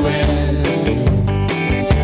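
Live worship band music with a steady beat, electric guitar and keyboard playing.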